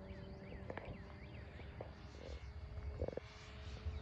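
Faint steady drone of the distant Cessna Bird Dog RC plane's engine and propeller. A bird calls in a quick run of short chirps, with a few soft knocks and wind rumble on the microphone.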